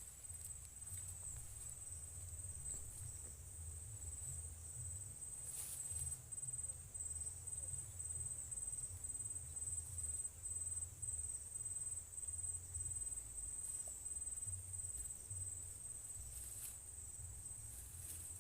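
Crickets trilling steadily in a high, finely pulsing tone, over a low rumble, with a couple of brief clicks.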